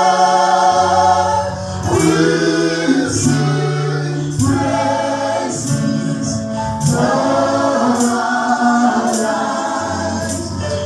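Choir singing a slow gospel worship song with held notes over a sustained keyboard bass line.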